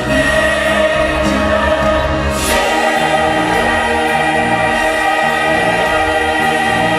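A church choir singing long sustained chords, moving to a new held chord about two and a half seconds in.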